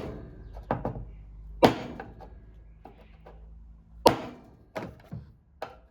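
Hammer striking a screwdriver to drive a small retaining piece back down onto the wheel shaft of a Honda HRU216 mower: about six sharp, irregularly spaced metal strikes, the loudest about one and a half and four seconds in.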